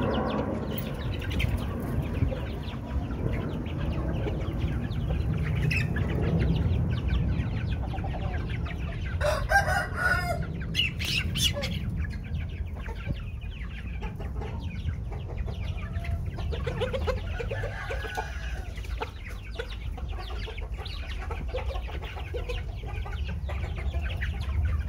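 A flock of Aseel chickens clucking as they peck at scattered grain. A cockerel crows loudly about nine seconds in.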